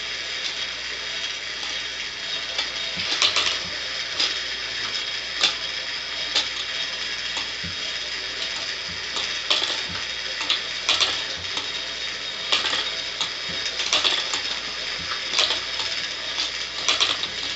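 Clockwork mechanism of a Schoenhut animated picture running: a steady whirr from its spinning fan governor, with irregular clicks and knocks as the cams and wire levers move the figures.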